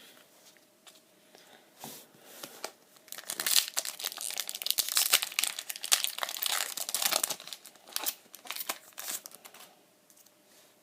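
Foil wrapper of a Pokemon trading card booster pack crinkling and tearing as it is ripped open by hand, a dense run of crackles that starts about two seconds in and dies away near the end.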